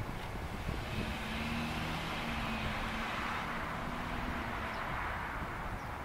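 An aircraft engine droning overhead, swelling about a second in and fading toward the end, over a steady low rumble.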